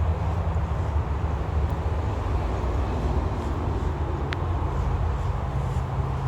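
A steady low mechanical hum at an even level, with a brief high tone about four seconds in.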